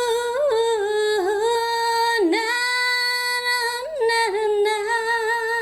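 A woman singing a wordless opening phrase unaccompanied. She holds long, steady notes, broken by small ornamental dips and turns in pitch.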